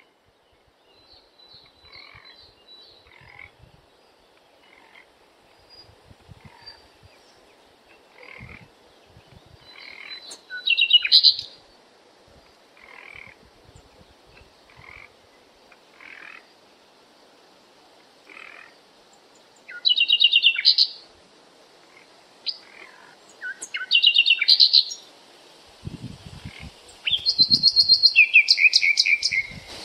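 A background track of animal calls: a run of short calls a second or two apart, with louder rapid pulsed trills at about 11, 20 and 24 seconds and a longer one near the end. A few low thumps come just before the end.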